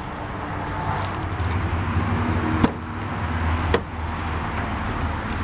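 Car door being unlatched and swung open: two sharp clacks about a second apart over a steady low hum.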